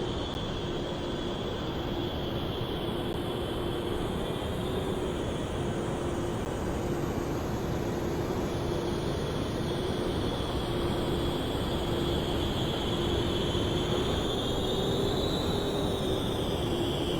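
Jet engines of an F-14 Tomcat running with a steady rumble and a high whine, growing slowly louder.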